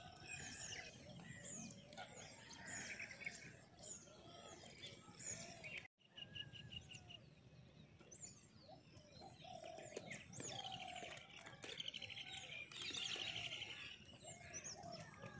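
Faint chorus of birds chirping and calling, with many short rising and falling notes and a few rapid trills. The sound drops out completely for a moment about six seconds in.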